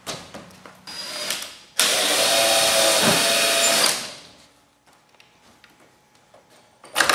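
Cordless drill/driver running a bolt into a plywood shipping crate: a brief burst about a second in, then a steady run of about two seconds. A sharp knock near the end.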